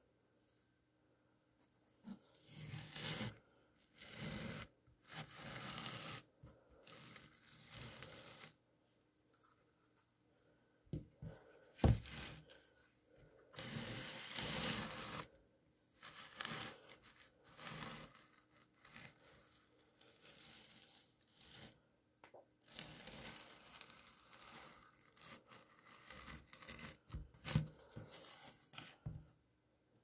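Fingers handling a Birkenstock Madrid Big Buckle sandal, rubbing and scraping along the strap and cork-soled footbed in irregular rustling bursts with short pauses. One sharp knock about twelve seconds in.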